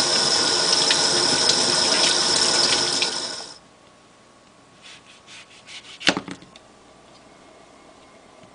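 Tap water running onto a grapefruit and into a stainless steel sink as the fruit is rinsed by hand, stopping after about three and a half seconds. Then faint strokes of a knife cutting through the grapefruit's rind on a cutting board, with one sharp knock about six seconds in.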